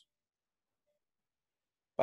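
Silence: a dead-quiet gap between stretches of narration.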